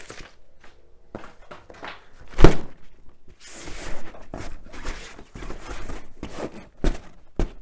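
A storage bin being handled and slid into a cubby of a cube storage shelf: a loud thunk about two and a half seconds in, a scraping rustle through the middle, and a few light knocks near the end.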